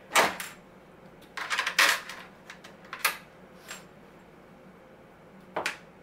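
Knocks and clatter of a dishwasher's front door panel coming loose and being handled once its last screws are out: a sharp knock, a cluster of rattling knocks about a second and a half in, then a few lighter clicks, the last near the end.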